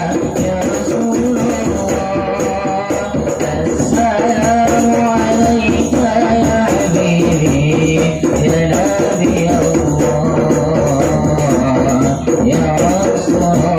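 Sholawat, an Islamic devotional song, sung in a melodious voice over hand-percussion accompaniment.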